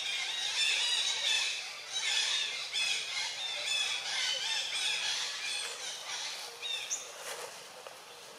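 Young long-tailed macaque squealing: a rapid run of high-pitched, arching cries, one after another, thinning out and fading near the end.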